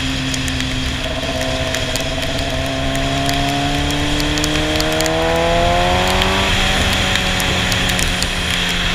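Sportbike engine pulling under throttle, its pitch climbing steadily for about six and a half seconds, then dropping suddenly at a gear change and running on steady. Wind and road rush run underneath.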